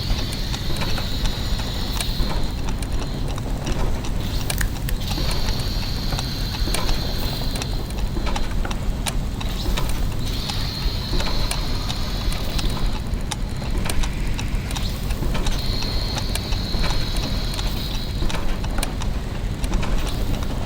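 Clockwork gear mechanisms running: a dense stream of ticks and ratcheting clicks over a steady low mechanical hum, with a high whirring tone that comes in for about two and a half seconds every five seconds.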